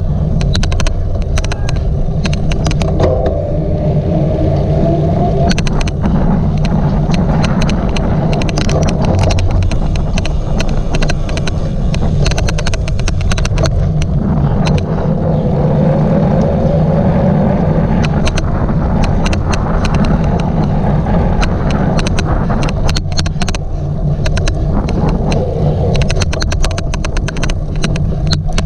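A cyclocross bike rumbling steadily over rough ground during a race, with many sharp, irregular clicks throughout: the odd clicking noise.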